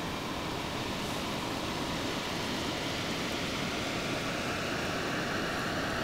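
A steady, even rushing noise with no distinct events in it.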